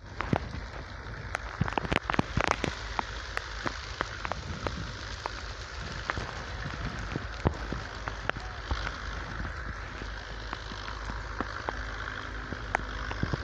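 Dry wheat straw rustling and crackling as sheaves are handled and stubble is trodden: a steady crackling rustle with scattered sharp clicks, densest about two seconds in, over a low rumble.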